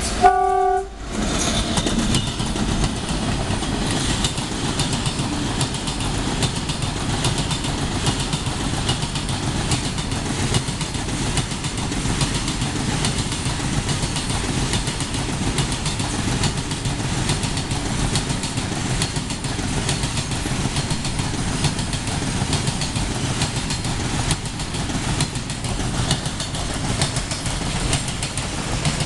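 A brief train horn blast at the very start, then the steady rumble and clickety-clack of a long rake of BTFLN petroleum tank wagons rolling past close by on the adjacent track.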